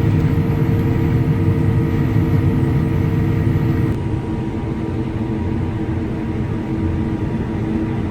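Combine harvester running while harvesting, heard from inside the cab: a steady low drone of engine and threshing machinery with a thin constant whine over it. About four seconds in the sound changes abruptly and becomes slightly quieter.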